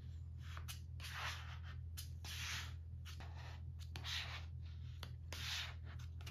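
A flat plastic squeegee card swiped over a vinyl laptop skin to press it down, giving a string of short scraping strokes about once a second, over a steady low hum.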